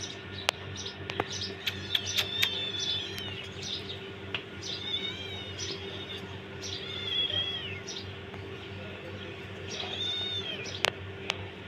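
Young kittens mewing: several high-pitched, arching cries of under a second each, repeated every second or two, over a steady low hum.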